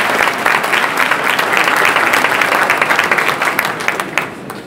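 Audience applauding, the clapping fading away after about four seconds.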